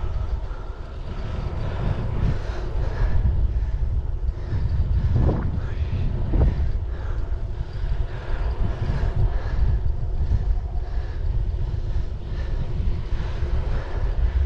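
Wind buffeting the microphone while riding an electric-assist bicycle with a trailer at speed: a steady, loud rush heaviest in the lows.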